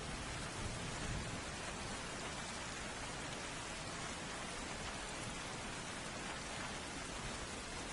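Steady heavy rain falling on a surface, an even hiss of many drops, with a low rumble of thunder dying away in the first second.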